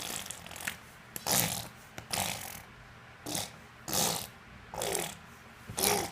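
Repeated short, breathy vocal sounds, about one a second, some with a faint falling pitch.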